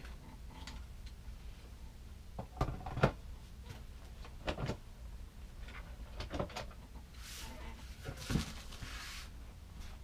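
Handling of packaging: a few scattered knocks and clunks, the loudest about three seconds in, then the plastic wrapping on the fridge rustling and crinkling for a couple of seconds near the end.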